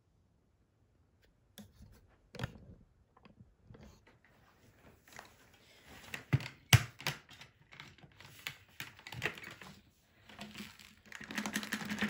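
Scattered plastic clicks and knocks as a Dyson Ball Animal 2's clear dust bin is handled and opened, then a dense rattle of grit, baking soda and dust falling and being tapped out onto a sheet of paper near the end.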